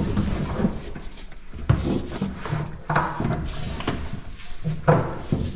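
A heavy vinyl-topped foam floor mat being pushed and unrolled against the bare metal floor of a Hummer H1: dull scuffing and rubbing with three sharper knocks spread through, the last near the end the loudest.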